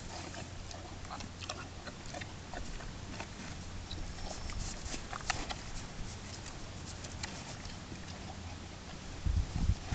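A horse eating a frozen bran mash treat from a rubber feed pan: irregular crisp crunches and clicks as it bites and chews the frozen mash. A few louder low thumps come near the end.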